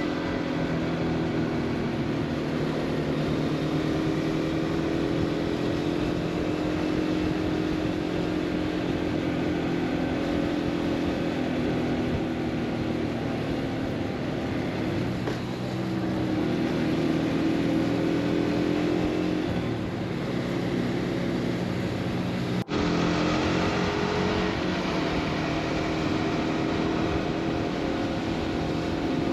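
Motorcycle engine running while riding, its pitch rising and falling with throttle and gear changes, over wind and road noise. The sound drops out for an instant about 23 seconds in.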